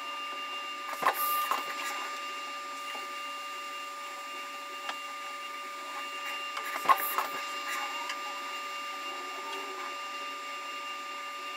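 Syil X7 CNC milling machine running a job under flood coolant: a steady mechanical whine made of several fixed tones. Sharp knocks break in about a second in and again, loudest, about seven seconds in.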